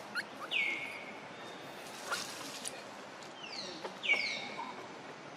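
Short, high squeaky calls that fall in pitch, one about half a second in and a cluster about four seconds in, with a few sharp crackles of dry leaves.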